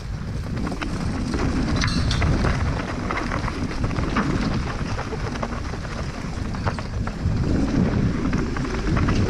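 Mountain bike rolling downhill over bumpy grass: wind buffets the microphone, and the tyres and bike rattle with many small knocks over the rough ground.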